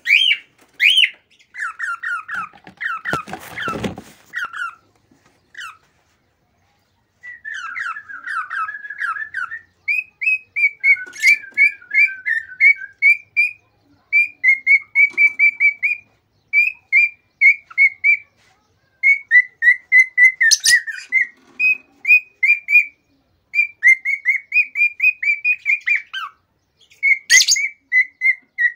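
Male cockatiel singing an excited song: rapid strings of short whistled notes in phrases with short pauses between them. There is a brief rushing noise about three seconds in and a few sharp clicks among the phrases.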